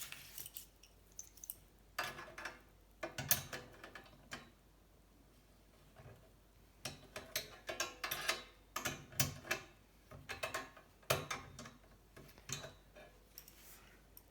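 Bursts of metallic clicking and rattling, like a ratchet or a threaded mechanism, from working the tool that spreads a steel bicycle frame's rear triangle, with short quiet pauses between the bursts.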